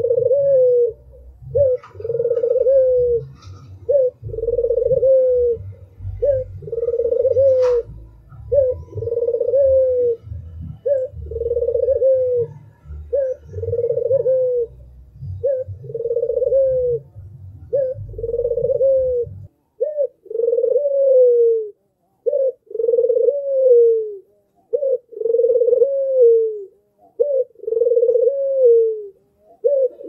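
White domestic ringneck dove (puter) cooing over and over: a short note followed by a longer arched coo that falls away, repeating about every two seconds. A low rumble underneath stops about two-thirds of the way through, and there is one sharp click about a quarter of the way in.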